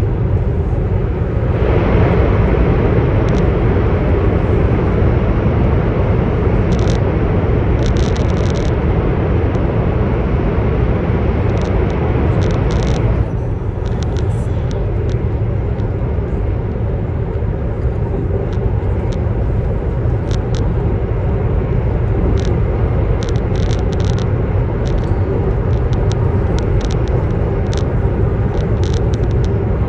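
Cabin noise of a CR400BF Fuxing high-speed electric multiple unit running on the line: a steady low rumble of running gear and airflow with scattered light clicks. The noise gets brighter about two seconds in and turns duller again abruptly at around thirteen seconds.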